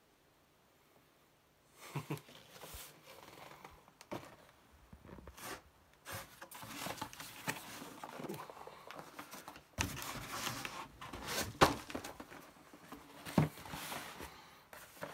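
A cardboard software box and its paper contents being handled and opened by hand: irregular rustling, scraping and crinkling starting about two seconds in, with several sharper knocks in the second half.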